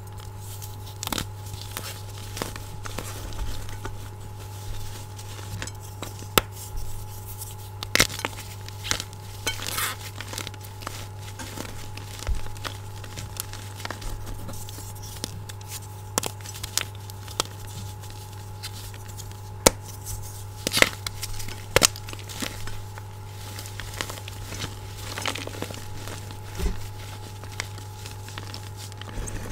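Blocks of gym chalk being squeezed and crumbled by hand in a glass bowl: irregular dry crunching and crackling, with a cluster of louder snaps about two-thirds of the way through.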